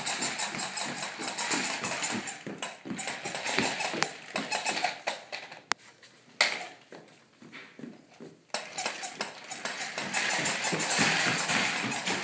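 Plastic Fisher-Price pull-along puppy toy clattering in a quick clip-clop rhythm as it is towed across a hardwood floor. It goes quiet for a few seconds around the middle, broken by a sharp click and a knock, then the clattering starts again.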